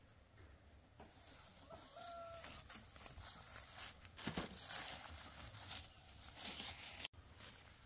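A chicken gives one short held call, then louder rustling and crackling takes over and cuts off abruptly near the end.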